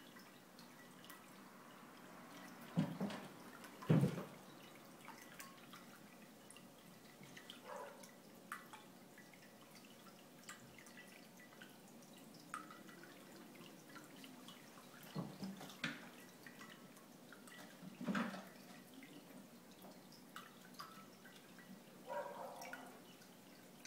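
Scattered soft thumps and knocks as two F2 Savannah cats jump, land and grapple on a carpeted cat tree and tile floor, over quiet room tone. The loudest knocks come about three and four seconds in.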